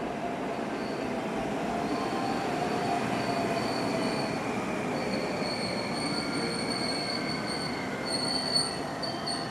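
JR West 521 series two-car electric train moving at the platform, its running noise steady, with a thin high-pitched squeal from the wheels that comes and goes and grows stronger in the second half.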